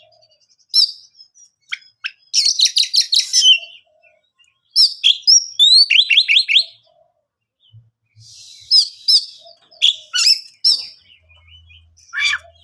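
Oriental magpie-robin singing: bursts of rapid, high whistled notes and trills, a few with quick rising glides, broken by short pauses between phrases.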